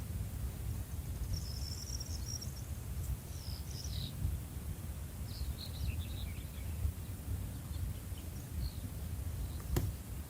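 Outdoor ambience: a steady low rumble with scattered short, high bird chirps, and a single sharp click near the end.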